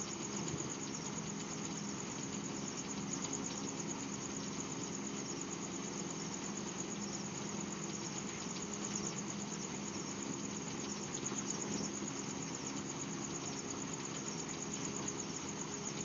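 A steady mechanical hum from a running motor, an even low drone over hiss that does not change, picked up by a security camera's microphone.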